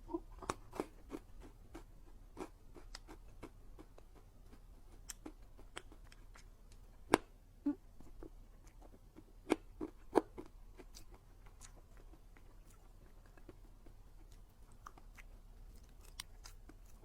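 Close-miked eating of a dessert: wet mouth clicks, bites and chewing with a few sharp crunches, loudest about 7 seconds in and twice around 10 seconds, then sparser.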